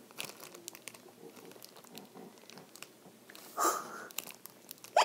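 Plastic zip-lock bag of slime crinkling as it is handled: a string of faint crackles, with a louder rustle about three and a half seconds in.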